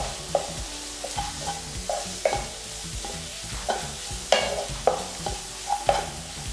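Spatula scraping and stirring in a nonstick kadai as chopped onions, green chillies, curry leaves and ginger-garlic paste fry in hot oil, with a steady sizzle underneath. The strokes come irregularly, one or two a second, a few louder ones in the second half.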